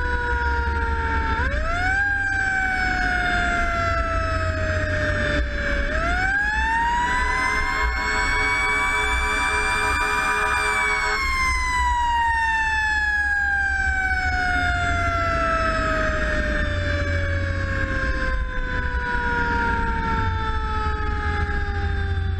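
Fire engine siren wailing, winding up sharply twice, holding its high pitch for a few seconds, then slowly winding down. A steady multi-note tone sounds alongside for about four seconds in the middle, over the low rumble of the truck.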